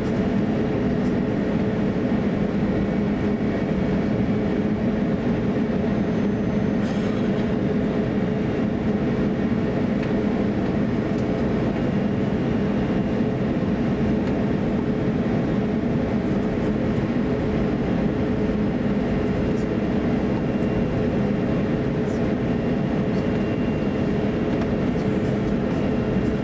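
Steady cabin drone inside an Airbus A350-900 taxiing: its Rolls-Royce Trent XWB engines at taxi power and the cabin air system, with a steady hum tone over the low rumble.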